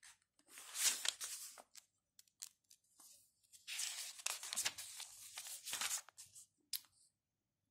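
Thick, stiff pages of a paperback book being leafed through by hand, with paper rustling. There are two main bursts, about a second in and again from about three and a half to six seconds in, followed by a few small flicks.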